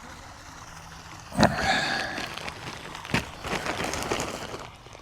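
Feed being handled while chickens are fed: a sharp knock about a second and a half in, followed by rustling, and another knock about three seconds in, as containers and a bag of frozen vegetables are dealt with.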